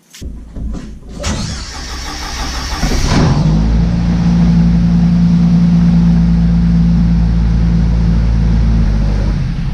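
A click, then the newly replaced starter motor cranks the 1995 Jeep Wrangler's engine for about two seconds. The engine catches and settles into a steady idle, a sign that the new starter works.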